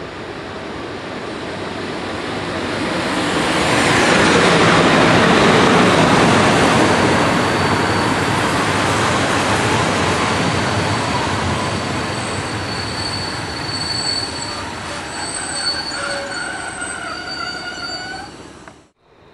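A passenger train hauled by an EP07 electric locomotive runs past along the platform. The rushing rumble of the locomotive swells to its loudest about five seconds in, then the coaches roll by. In the second half, high, steady metallic wheel squeals build up. The sound cuts off suddenly just before the end.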